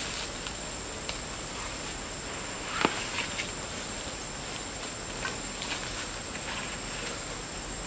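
Dry leaves and twigs crackling under a person shifting on the forest floor and setting down a backpack, with scattered small clicks and one sharp snap about three seconds in. A steady high-pitched insect drone runs underneath.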